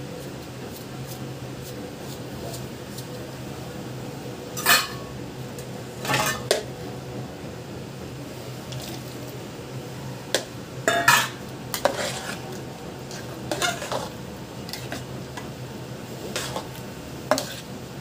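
Spatula and utensils knocking and scraping against a stainless steel bowl as chopped fruit is stirred into thick custard: about a dozen irregular clinks, the loudest a little past the middle. A steady low hum sits underneath.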